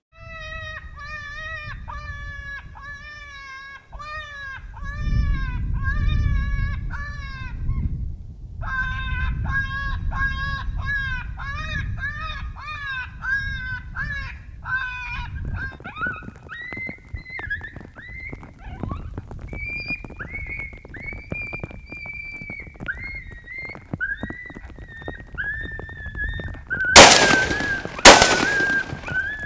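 Electronic predator call playing a high, pitched distress cry over and over, about two cries a second, then longer drawn-out wailing cries in the second half, with a low wind rumble partway through. Near the end two shotgun blasts go off about a second apart, much louder than the calling.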